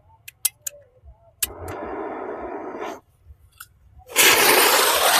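A few sharp clicks and a brief, quieter hiss. About four seconds in, a loud, steady hiss starts as a small ground-spinner firework (chakri, Chakkar Ashoka) catches and burns.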